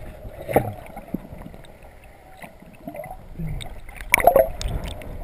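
Muffled underwater water noise picked up by a submerged camera, with gurgles and ticks. There is a short splash about half a second in, and a louder splashing as the camera breaks the surface about four seconds in.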